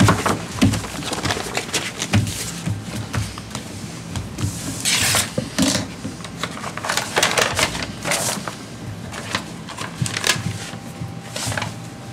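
Paper rustling and crinkling as a bid packet is opened and its pages handled, in a run of short crackling bursts, the loudest about five seconds in.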